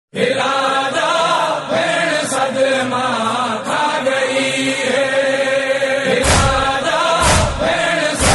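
A noha, a Shia lament, chanted in a wavering melody, starting abruptly. From about six seconds in, heavy thumps join about once a second.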